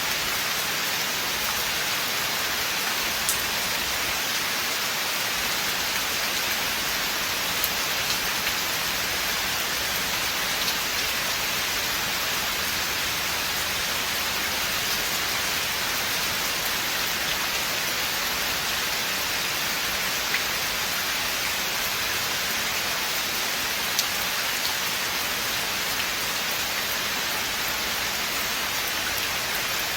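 Steady rain falling in a forest: a dense, even hiss of drops, with a few louder single drips ticking now and then.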